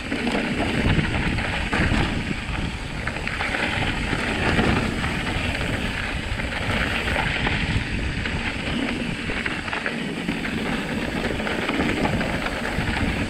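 Wind rushing over a bike-mounted or rider-worn camera microphone as an e-mountain bike rolls fast down a dirt trail, with tyre noise and frequent knocks and rattles from the bike over rough ground.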